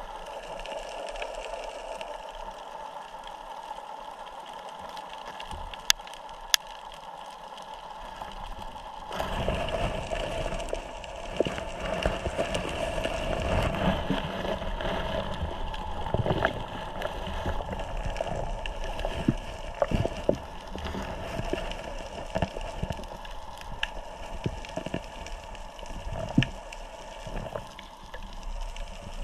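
Underwater sound of hands digging in the sandy seabed to catch a crab: a steady hum of several tones, then from about nine seconds in louder scraping, knocks and bubbling as the sand is stirred up.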